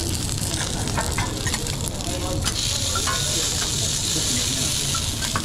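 Food sizzling in a hot frying pan, the sizzle growing stronger and brighter about halfway through, with scattered light clicks.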